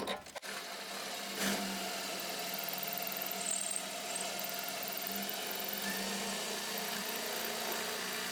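Electric drill running steadily as it bores through hard weld in a door hinge, the bit freshly oiled.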